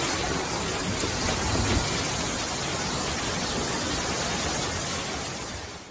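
Floodwater rushing in a fast torrent along a street: a steady, even rushing of water that fades out near the end.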